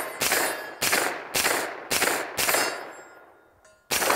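Faxon Bantam 9mm pistol-caliber carbine firing: five shots about half a second apart, then a pause and one more shot near the end, each shot ringing off as it fades.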